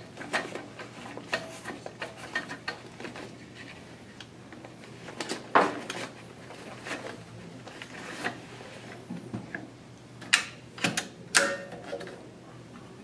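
Label stock being threaded by hand through an open Zebra XI4 label printer: irregular rustles, clicks and knocks of the paper and the printer's guides and rollers. The loudest is a sharp knock about halfway through, with a quick run of clicks near the end.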